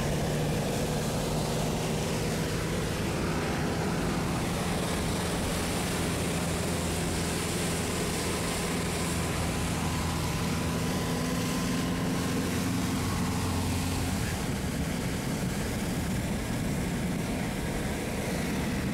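A four-wheel-drive off-road vehicle's engine running steadily under load as it drives through deep floodwater, with water rushing and spraying against the body and windscreen.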